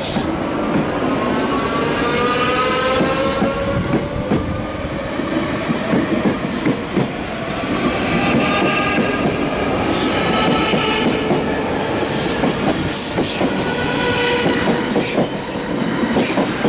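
South West Trains electric multiple unit pulling away along the platform, its traction motors whining as the pitch rises with speed. Wheels clatter over rail joints throughout.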